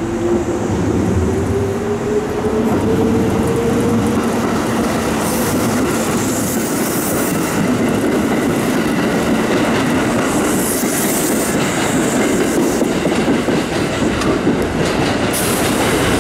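Kintetsu limited express electric train running close past, wheels clattering over the station's points, with a rising motor whine in the first few seconds. There are two stretches of high-pitched wheel squeal, about five and ten seconds in.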